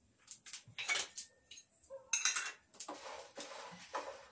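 A metal spoon clinking and scraping against a kadai in a series of short, irregular strokes, the loudest a little over two seconds in, as ingredients are stirred while dry-roasting without oil.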